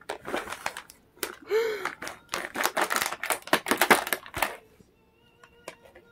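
A cat rummaging in a cloth tote bag, rustling and crinkling a plastic treat pouch in quick scratchy bursts that stop just under five seconds in. Faint background music follows.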